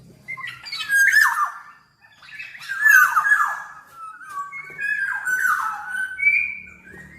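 Black-naped oriole (kepodang) singing: three loud bursts of song, each a run of quick falling notes, about two seconds apart, with softer calls between.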